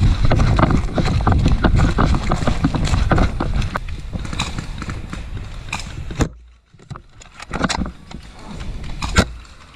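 Rustling and rapid irregular clicks of movement close to a helmet-mounted camera, probably footsteps and gear, with a heavy low rumble on the microphone in the first few seconds. A sharp knock comes about six seconds in, then it briefly goes quiet before scattered clicks return, with one loud click near the end.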